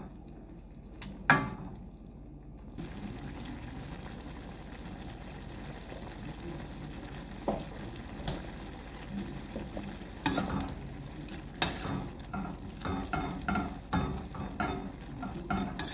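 Miki noodles cooking in broth in a stainless steel pan, a steady hiss. A single sharp clack about a second in, and from about ten seconds in, metal tongs clicking and scraping against the pan as the noodles are stirred.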